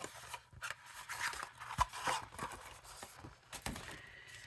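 Card stock being handled and folded by hand: irregular rustling and crinkling with small sharp clicks as the creases are pressed.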